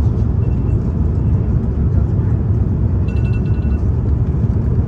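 Steady low rumble of an Airbus A350-900's Rolls-Royce Trent XWB engines and airflow heard inside the cabin on approach, with a short high tone about three seconds in.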